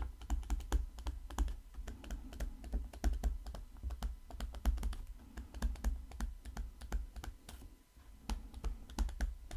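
Stylus writing on a graphics tablet: a quick, irregular run of sharp clicks from the pen tip, with dull knocks underneath.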